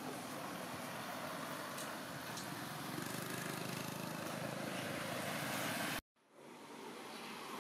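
Steady outdoor background noise with no distinct events. It grows a little louder about three seconds in, cuts out abruptly about six seconds in, and fades back up.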